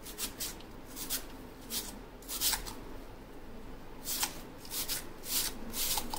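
Raw potato being shredded on a fine grater: a series of short, irregular scraping strokes.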